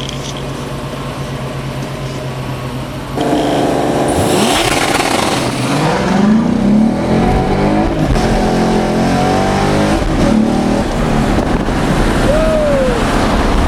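V8 car engine cruising, then going to full throttle about three seconds in and accelerating hard, revving up and dropping back repeatedly as it pulls through the gears, heard from inside the car.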